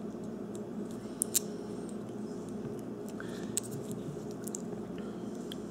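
A few small clicks and light rustling from fingers handling a homemade battery pack of taped AA cells bound with a rubber band, with two sharper clicks close together about a second in, over a steady low hum.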